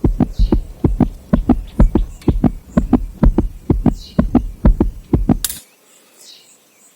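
Ratchet wrench on a cylinder head bolt clicking in quick, even strokes, about four or five a second, as the bolt is pulled down into its helicoil insert; the clicking stops about five and a half seconds in.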